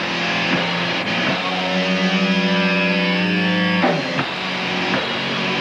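Live rock band playing, led by electric guitar: a chord is held with a wavering pitch from about a second and a half in and cut off sharply near four seconds, then choppier playing with sharp hits carries on.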